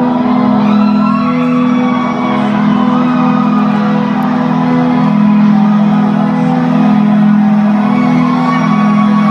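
Live concert music heard from the crowd: a sustained synth drone with held pad chords, the slow intro of a pop song before the drums come in, with faint shouts from the audience.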